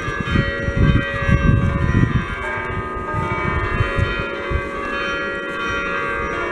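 A ring of five church bells tuned in E-flat, cast by Achille Mazzola in 1951, ringing with many overlapping notes that hang on and blend.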